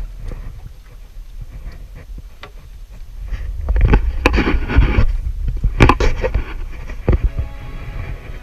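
Wind rumbling on the microphone aboard a small boat, with knocks and scrapes against the boat's side. A louder, rougher stretch in the middle is broken by sharp knocks.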